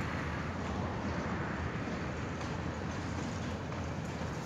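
Long diesel-hauled freight train of covered wagons rolling slowly around a curve: a steady rumble of steel wheels on rail, with a few faint clicks.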